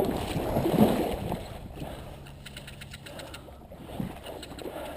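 Water splashing and sloshing as someone wades into a shallow stream, loudest in the first second and then dying away.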